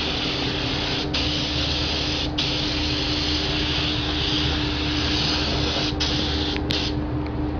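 Gravity-feed paint spray gun hissing steadily as compressed air atomises paint, breaking off for an instant a few times. A steady low hum runs underneath.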